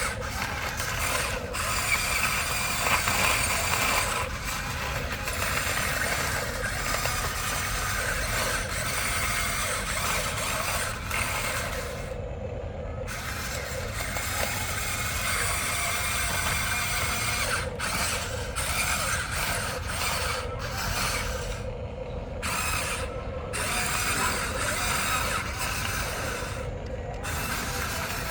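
Geared electric motors of a Huina remote-control toy excavator whirring as it is worked. The whirring stops briefly a few times and starts again.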